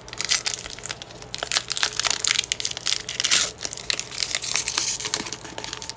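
Foil wrapper of a Pokémon TCG booster pack crinkling and crackling as it is handled and torn open at the top: a dense run of sharp crackles, thickest in the middle.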